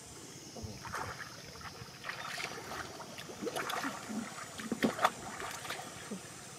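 Muddy water in a shallow pool sloshing and splashing in irregular short bursts as it is worked by hand, with scattered small knocks and a sharper one about five seconds in.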